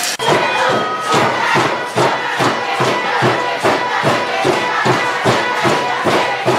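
Spectators cheering and chanting over a fast, steady beat of about two to three strokes a second.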